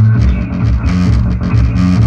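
Loud rock-style music with heavy, pulsing bass notes, played through a Sony subwoofer sound system.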